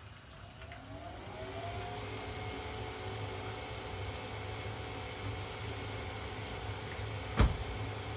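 A small electric fan motor spins up with a rising whine about a second in, then runs at a steady pitch over a low hum. A single sharp knock sounds near the end.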